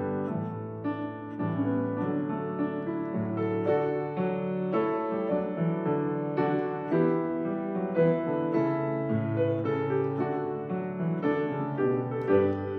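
Piano postlude: sustained chords with a melody line moving over them.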